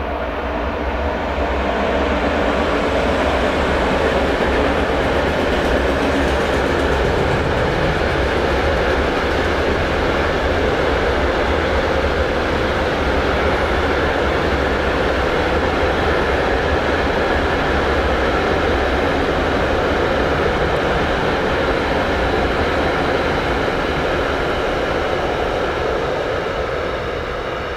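Freight train of hopper wagons rolling past, a steady rumble of wheels on rail that builds over the first couple of seconds and fades away near the end.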